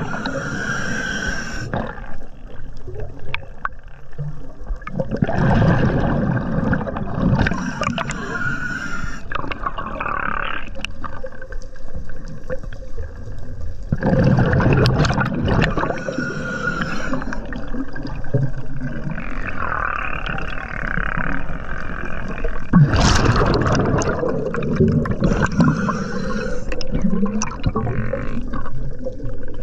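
Scuba diver breathing through a regulator underwater: a hissing inhale and then a gurgling rumble of exhaled bubbles, repeating every few seconds.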